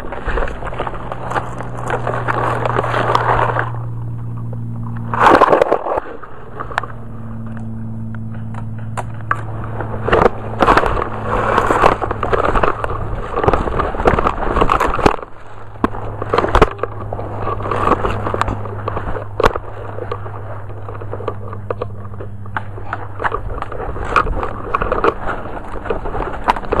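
Dry grass and brush rustling and crackling against the gun and camera as someone pushes through undergrowth, with a few sharp snaps, the loudest about five seconds in. A steady low hum runs underneath.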